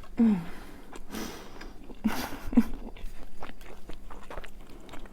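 Close-miked biting and chewing of vegan honey walnut shrimp, with crunches about one and two seconds in. Short hummed "mm" sounds come at the start and again about two seconds in.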